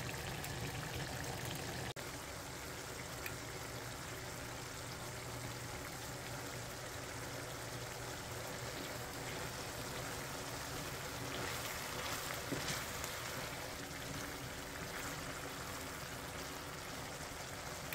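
Ground beef and chopped onion sizzling steadily in their own fat and juices in a stainless steel skillet, with a brief break about two seconds in.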